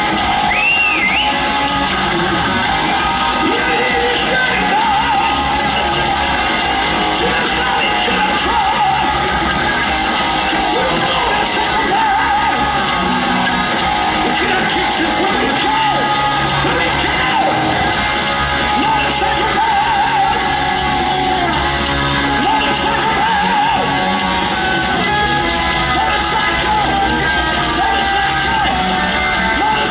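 Heavy metal band playing live in a large hall: distorted electric guitars, bass and drums, with a singer's high, shouted vocals over them.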